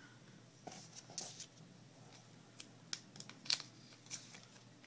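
Magic: The Gathering cards in plastic sleeves being handled and sorted by hand: faint, scattered clicks and brief rustles, the sharpest click about three and a half seconds in.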